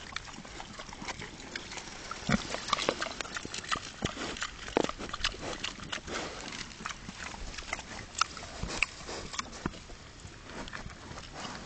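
Pigs eating sweetcorn leaves: irregular crunching and chewing, with a few short grunts.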